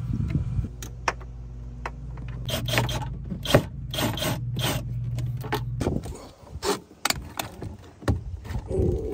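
Clattering and scraping as plastic battery-tray parts and tools are handled and set in place in a boat's battery compartment, with a run of sharp clicks and knocks in the middle. A steady low hum runs underneath and stops about six seconds in.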